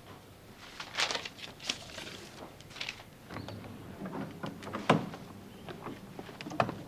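A door being handled and shut, with footsteps: a run of irregular knocks and clicks, the sharpest about five seconds in.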